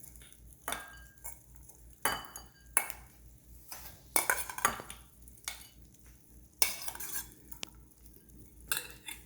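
A spoon scooping and scraping bhelpuri out of a mixing bowl onto a plate, with irregular clinks and scrapes against the dishes.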